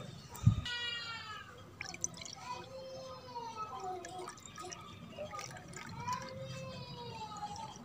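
Sattu drink, thin roasted-gram-flour batter, poured from a glass jug into a clay bowl, splashing and gurgling. A low thump about half a second in, and a bleat just after it.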